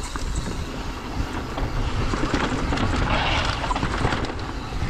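Mountain bike rolling over a dirt trail: a steady rumble of tyres on dirt with small rattles and clicks from the bike, and wind buffeting the microphone, growing louder toward the end.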